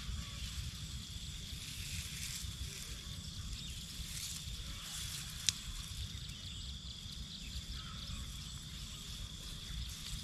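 Steady low wind rumble on the microphone under a continuous high-pitched insect drone, with faint sloshing and rustling of hands working in shallow paddy water and one sharp click about halfway through.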